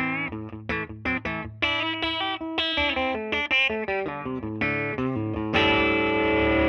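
Electric guitar played through a Gibson Falcon tube amp: a quick phrase of picked single notes with some bent notes, then a loud chord struck about five and a half seconds in and left to ring.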